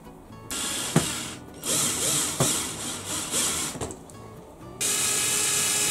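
Cordless drill running in three bursts, about a second, two seconds and a second long, with a few sharp knocks in between.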